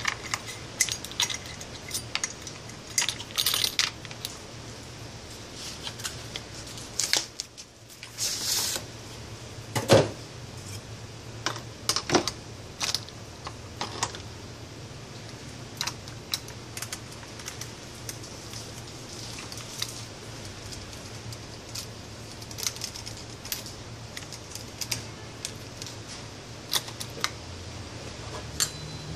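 Steel saw chain links clinking and jangling, with scattered sharp clicks and knocks, as a chain and guide bar are fitted onto a Stihl MS 193 chainsaw. A low steady hum runs underneath.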